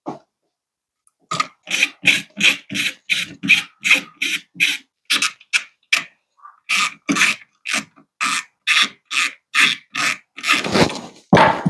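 Rhythmic back-and-forth scraping strokes, about three to four a second, in two runs with a short pause in the middle, ending in a longer, heavier rub.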